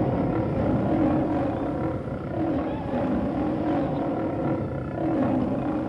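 Sound effect of a monster roaring: deep, wavering growls over a continuous rumble.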